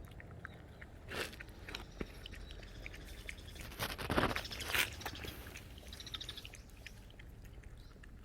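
A dog licking and lapping at coconut water in an opened coconut: irregular wet clicks and scraping, louder around four to five seconds in.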